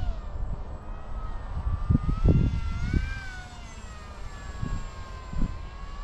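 Brushless electric motor (2205, 2300KV) and three-blade propeller of a foam RC flying wing whining in flight, its pitch rising to a peak about three seconds in and then falling away. Low rumbling gusts, like wind on the microphone, come and go underneath.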